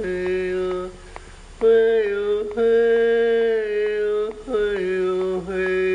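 A voice chanting in long held tones, each a second or two long, with short breaks and a change of pitch between them.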